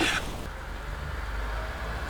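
A brief clack of camp gear, then a steady low rumble of strong wind.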